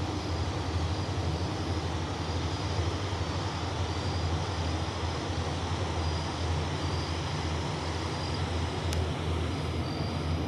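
Tugboat's diesel engines running with a steady low rumble as the tug pushes a barge past.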